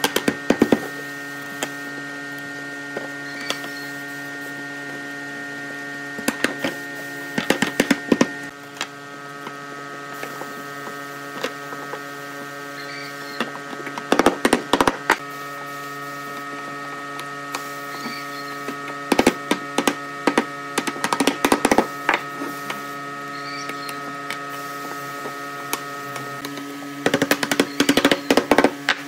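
A steady electric motor hum made of many pitched tones, broken every few seconds by clusters of rapid sharp knocks and clatters.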